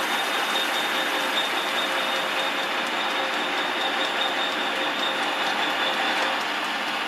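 Metal lathe running in power feed with the tool taking a cut on the workpiece: a steady mechanical hiss with a thin high whine. The sound eases slightly about six seconds in.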